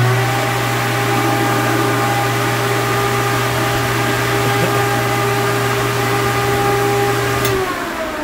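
Vevor 12-inch explosion-proof ventilation fan running: a loud rush of air with a steady electric hum and a steady whine from its seven-blade cast-aluminium fan. Near the end a click as it is switched off; the hum cuts out and the whine falls in pitch as the fan winds down.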